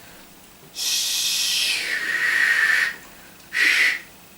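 A man's voice making the voiceless 'sh' sound: a long hissing 'shhh' that slides lower as it goes, then a short 'sh' burst about three and a half seconds in.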